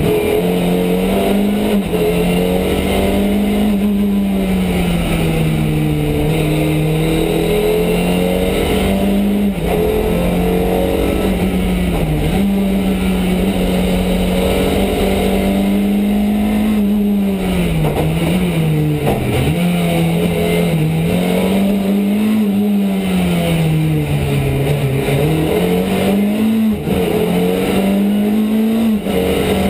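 Ford Escort Mk2 rally car's 2.4-litre Pinto four-cylinder engine driven hard, heard from inside the cabin. Its pitch climbs and drops back again and again as the car is driven flat out through the gears and corners.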